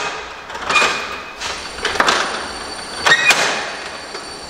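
Irregular knocks and rattling at a wooden apartment door and its lock, about half a dozen hits, some with brief high metallic squeaks.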